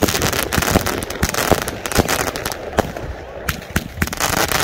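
Fireworks going off: many sharp bangs and crackles in quick, irregular succession over a continuous crackling rumble.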